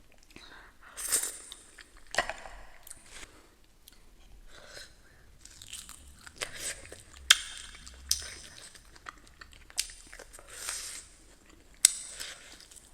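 Close-miked eating: crunchy bites and chewing, with several sharp clicks scattered through.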